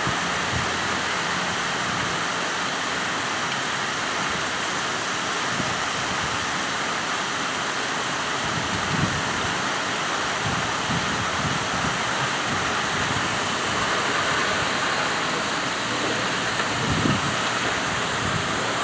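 Heavy rain pouring down steadily, a dense, even hiss of water.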